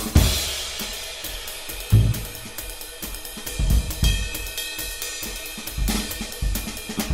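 Background music with a driving drum-kit beat: busy cymbals and hi-hat over recurring heavy low drum hits.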